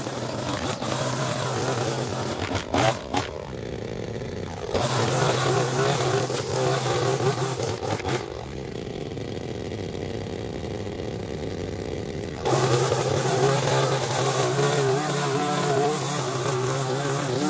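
Small engine of powered lawn equipment running steadily, its sound shifting abruptly a few times, about three and a half seconds in, near five seconds, and again around eight and twelve seconds.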